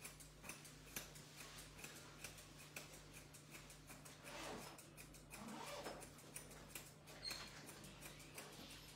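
Grooming shears snipping lightly through a puppy's head hair, a quiet series of small quick clicks.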